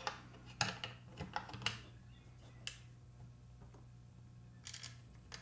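Light metallic clicks and taps as the loop lever is fitted into the receiver of a Marlin 1894 CST lever-action rifle. They come a few at a time over the first three seconds, with a short cluster near the end, over a faint steady low hum.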